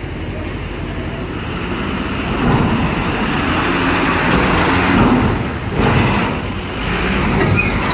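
Diesel truck engine running under load as the truck drives over a steel ferry ramp. It gets louder about two and a half seconds in, dips briefly, then picks up again.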